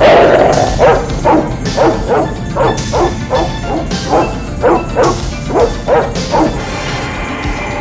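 Action film score: a loud hit, then a run of short, sharp percussion strokes about two a second that stop near the end.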